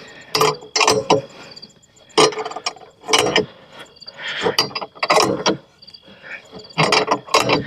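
A run of irregular knocks and short scuffs from handling, over a steady high chirping of insects in the background.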